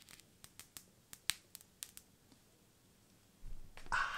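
Clear protective plastic film being peeled off a mirrored iridium motorcycle-helmet visor: a run of faint, sharp crackling clicks as it comes away, then a louder, longer sound about three and a half seconds in.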